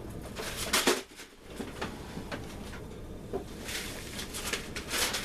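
Packaging rustling and knocking as Funko Pop boxes in plastic pop protectors are handled and unpacked from a shipping box, with a louder clack about a second in and another run of rustling near the end.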